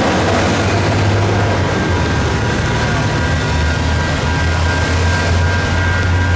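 Electronic railroad-crossing bells ringing steadily while the crossing signals are active, over a steady low engine rumble that grows stronger about halfway through.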